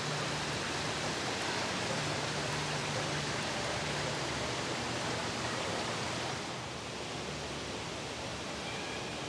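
Steady rushing noise of running water, a little quieter from about six and a half seconds in.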